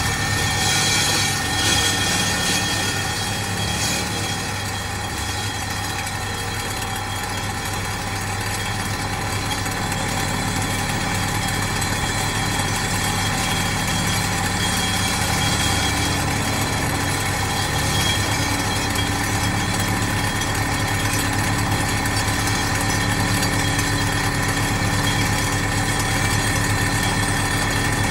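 Steady drone of heavy diesel-hydraulic pile-driving machinery: a low engine hum under a constant high hydraulic whine, with no separate blows or knocks.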